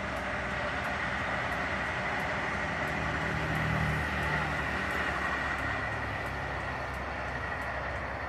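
Steady, muffled rushing noise inside a closed car, with the passing Jakarta–Bandung high-speed electric train barely heard through the sealed cabin. It swells a little about halfway through.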